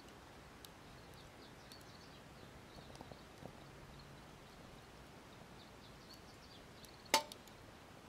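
Wood fire burning in a small titanium camp stove: faint scattered crackles, then one sharp pop about seven seconds in.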